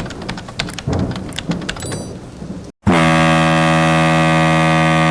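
Rain with crackling thunder, then, after a brief cut to silence nearly three seconds in, a cruise ship horn sounds one long, steady, loud blast that holds one pitch.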